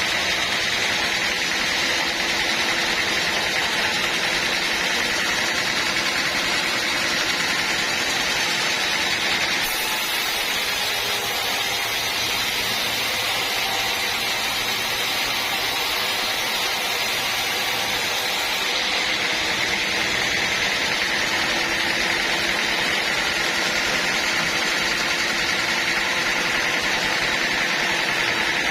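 Bandsaw sawmill running steadily, a loud, even mechanical noise.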